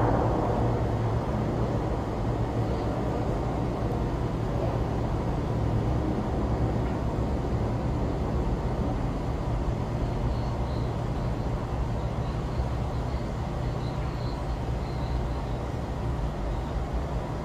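Steady low outdoor rumble of distant traffic and machinery hum, a little louder in the first second as a passing sound fades away.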